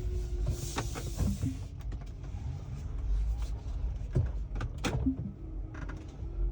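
Tesla squeaking and creaking, with two clusters of short squeaks and clicks, about a second in and again around four to five seconds in, over a steady low road rumble. The owner blames the noise on a recent service.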